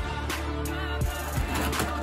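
Background music with a steady hip-hop style beat and heavy bass.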